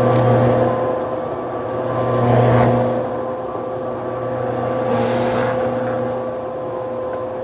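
Vacuum cleaner running with a steady hum, swelling louder and easing off about every two and a half seconds.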